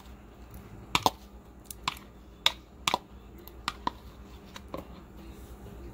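A spoon clicking and tapping against a small bowl as chopped tomato is scraped out into a mixing bowl: irregular, light, sharp clicks, about ten of them spread over a few seconds.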